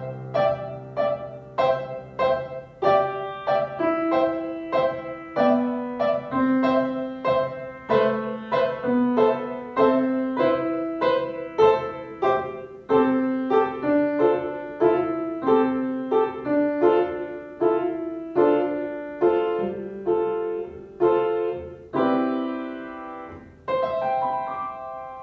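Upright piano played solo: an evenly paced line of struck notes and small chords. Near the end it closes on a final chord that rings and fades.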